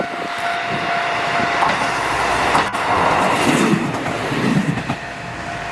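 Kyoto Tango Railway diesel railcar running past on the track. A level-crossing bell rings steadily over the train noise.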